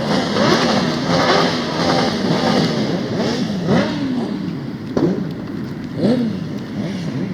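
Several off-road motorcycle engines revving, their pitch rising and falling over and over as the throttles open and close, overlapping one another. A short sharp click about five seconds in.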